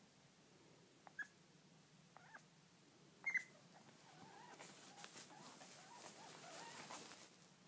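A pet animal whining faintly: three short high squeaky calls about a second apart, then a longer, quieter wavering whine. The sounds of the pet missing its absent owner.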